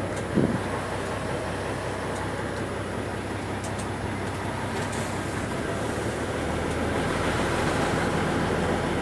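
Steady engine and road noise heard from inside a vehicle moving along a wet dirt track, growing a little louder near the end. A brief louder sound about half a second in.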